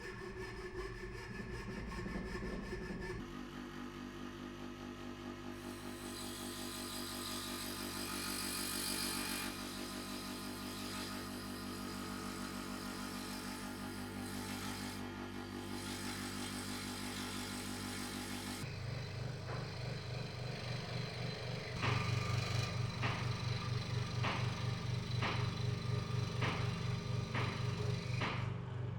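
Electric power tool running while working wood, heard across several cut segments with a steady motor whine; in the last few seconds the sound pulses regularly, a little faster than once a second.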